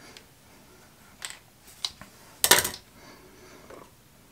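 Light handling clicks of scissors and a plastic fill-valve refill tube at a toilet tank, with a short clatter about two and a half seconds in as the scissors are set down on the porcelain.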